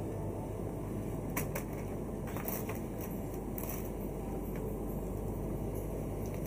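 Steady low mechanical rumble, like a running vehicle or machinery hum, with a few faint clicks over it.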